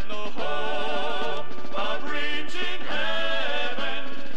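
Male gospel quartet singing in close harmony, phrases of several voices with held chords.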